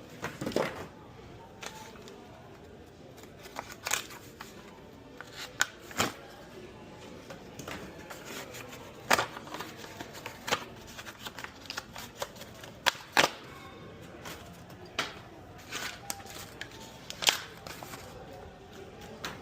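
Packaging being pulled off a new mountain bike: irregular rustling and handling noise, broken by about a dozen sharp clicks and snaps at uneven intervals.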